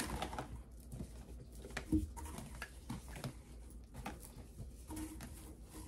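Plastic tubes and bottles of cream being handled and stood in a fabric storage bin: light rustles and small knocks, with one louder knock about two seconds in.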